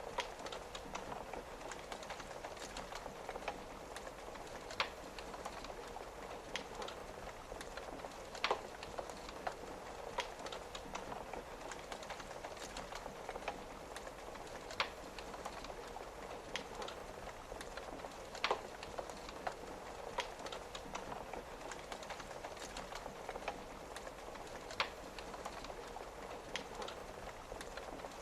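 Wood fire crackling, with sharp single pops every second or few, over a steady patter of rain on a window.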